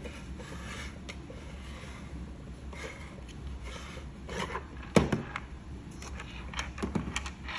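Pieces of a toy shape sorter scraping and rubbing, with a sharp knock about five seconds in and a few lighter clicks and knocks near the end.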